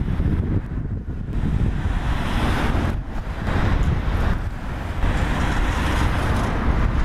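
RM31 Standard railcar approaching along the track, its distant engine and wheel rumble mixed with wind buffeting the microphone.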